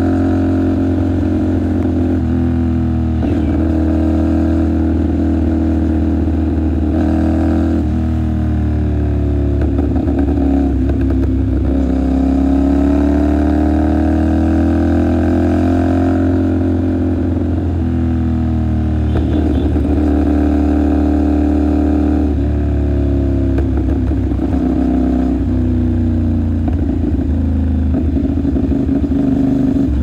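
CFMOTO 450SR parallel-twin motorcycle engine riding through the gears. Its note rises and falls with the throttle and steps at gear changes, with a long climb and fall around the middle.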